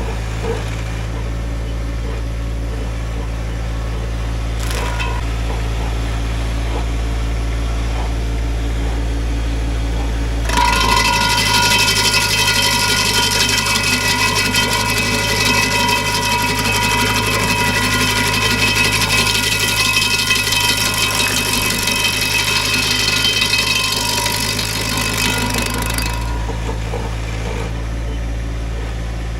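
Tractor engine running a PTO-driven stump grinder with a 24-inch carbide-toothed wheel. From about ten seconds in until about twenty-six seconds in, it grows louder with a steady high whine and a grinding rasp as the wheel works into the stump, then drops back to the steady running sound.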